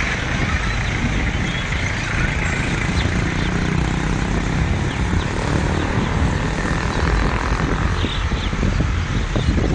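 Steady rushing whoosh of wingbeats from a huge flock of swallows flying in to their evening roost.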